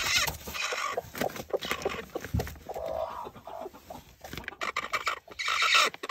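Silkie hen clucking in short, fretful calls, with scuffling and rustling in between.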